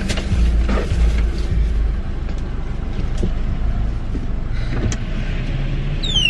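Car idling, heard from inside the cabin as a steady low hum, with a few light knocks and a short falling squeal near the end.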